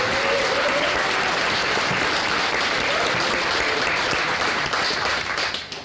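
Audience applauding, a steady dense clatter of many hands that cuts off suddenly near the end.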